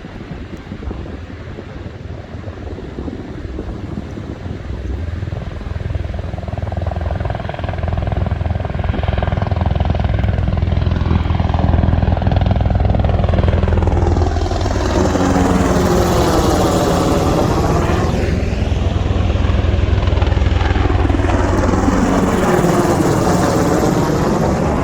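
Sikorsky UH-60 Black Hawk helicopters flying low, their rotors' deep thudding rumble growing louder as they approach. Two sweeping swells come in the second half as the helicopters pass close by, one after the other.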